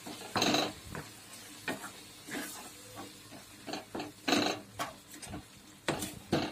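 Spatula stirring and scraping grated sweet potato in milk in a kadhai, a string of irregular swishing strokes against the pan, over a faint sizzle from the hot milk.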